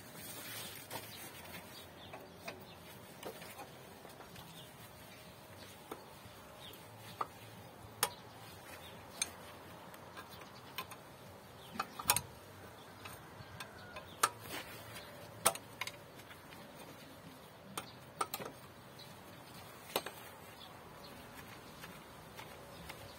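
Irregular sharp clicks and clinks of hand tools and metal fittings, about one every second or two, as fuel-line fittings and a bracket are worked loose in a car's engine bay.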